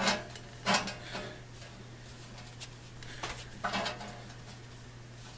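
Dunlop saw set on a crosscut handsaw's teeth, squeezed and moved tooth by tooth to set them: sharp metallic clicks, three in the first second or so and two more about three seconds in, over a low steady hum.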